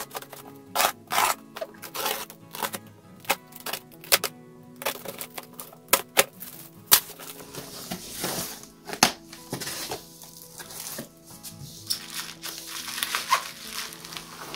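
Box cutter slicing through packing tape on a cardboard box, in a series of sharp rasps and clicks, then the cardboard flaps pulled open and bubble wrap rustling under the hands near the end. Background music plays throughout.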